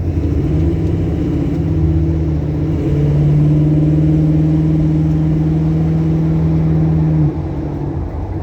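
Classic Ford Mustang Mach 1's engine pulling steadily as the car is driven, its note growing louder about three seconds in, then dropping off sharply about seven seconds in.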